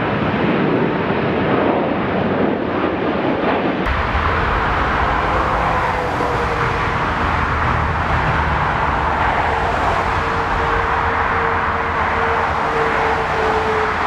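Airbus A340-600's four Rolls-Royce Trent 500 jet engines at takeoff power as it lifts off. About four seconds in it changes abruptly to a Boeing 747-8's GEnx turbofans at takeoff power on the runway: a deep rumble under a steady whine.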